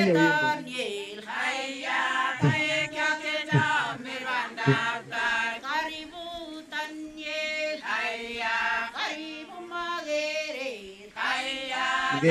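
A women's group singing a song together, with one woman leading into a microphone.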